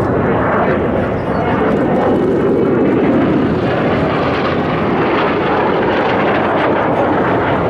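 Jet engine noise from Blue Impulse Kawasaki T-4 jet trainers flying past, loud and steady throughout, with a slight fall in pitch a few seconds in as they pass.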